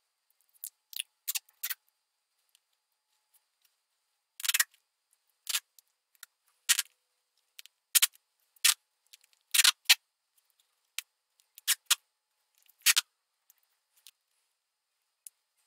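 Silver duct tape pulled off the roll in a string of short, sharp rips, about fifteen in all in irregular clusters.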